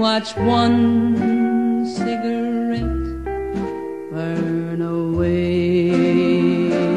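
Music: a song with guitar over a bass line, notes held and changing every second or two.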